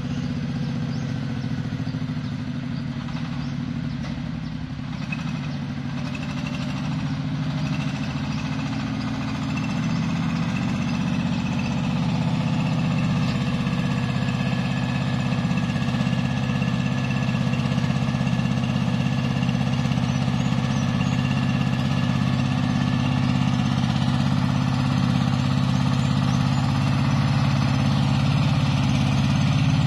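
Engine of a small motorised tipping dumper carrying a full load, a steady low drone that grows gradually louder as the machine approaches.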